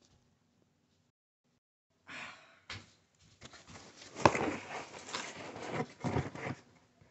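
Near silence for about two seconds, then a cardboard pizza box being handled and set down: rustling and knocking of cardboard, with one sharp knock about four seconds in.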